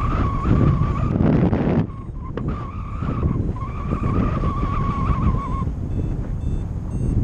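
Paragliding variometer sounding its climb tone, a steady high note near 1 kHz that breaks off about two seconds in and again briefly past three seconds, then stops well before the end. The tone signals the glider rising in lift. Wind rushes on the microphone throughout.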